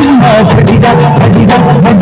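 Telugu devotional song playing loudly: a voice singing over a steady drum beat.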